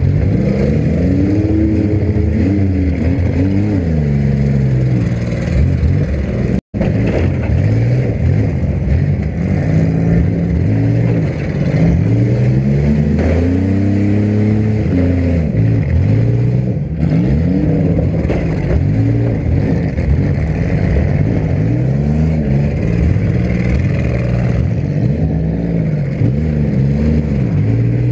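Demolition derby car engines revving up and down over and over, several engines overlapping. The sound cuts out completely for a split second about six and a half seconds in.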